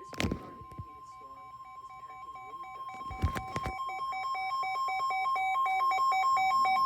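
NOAA Weather Radio warning alert tone: a steady high tone. Over it, a buzzier electronic alarm beeps rapidly and keeps getting louder, as a weather-alert radio's own alarm does. Two short knocks are heard, one at the start and one about three seconds in.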